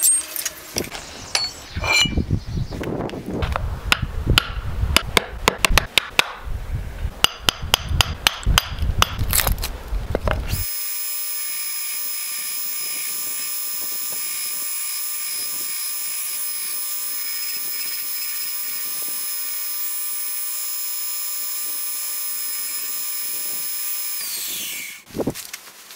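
Irregular scraping and knocking for about the first ten seconds, then a belt grinder starts running steadily with a constant high whine, the ash axe handle pressed against the sanding belt in short passes, and the belt winds down near the end.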